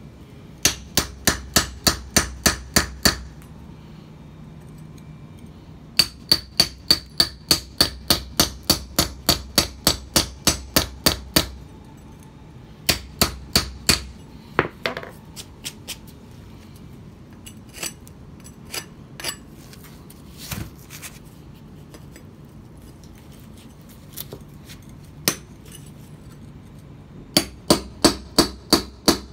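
Hammer striking a steel mason's chisel held in a scored line on a concrete paver, cutting the stone. The blows come in quick runs of about four a second, each with a short metallic ring, with pauses and a few single blows between runs.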